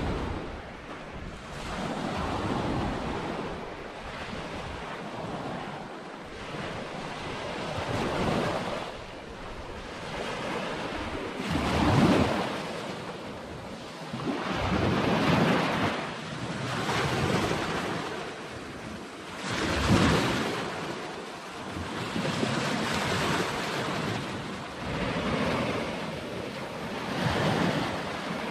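Small waves washing onto a sandy beach, the surf swelling and falling back every couple of seconds, with a few larger breakers standing out. Wind buffets the microphone.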